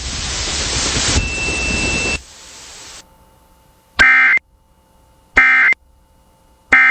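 Emergency Alert System end-of-message signal: three short, identical screeching digital data bursts about 1.4 seconds apart, marking the end of the alert. Before them, about two seconds of hiss that drops away.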